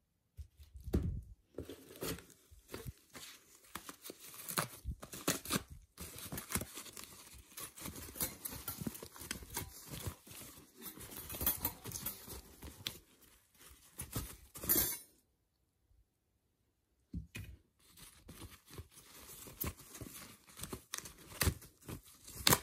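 Plastic packaging bag crinkling and rustling as it is handled and lifted out of a cardboard box, in irregular bursts, with a pause of about two seconds two-thirds of the way through.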